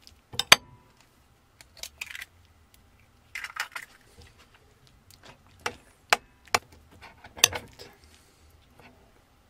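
An egg cracked with a sharp knock about half a second in, followed by a few brief scraping crackles, then a metal spoon clinking several times against a ceramic bowl as the egg is stirred into rice.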